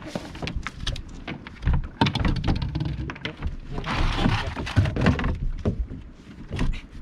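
Irregular knocks and thuds with rustling, from fishing gear and catch being handled aboard a small boat.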